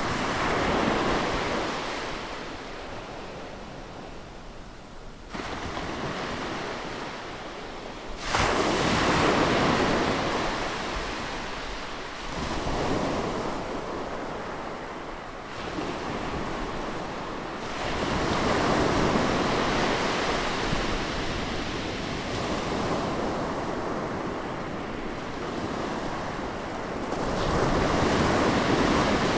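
Ocean surf: waves breaking and washing up the shore, swelling and easing every few seconds. A loud surge comes in sharply about eight seconds in.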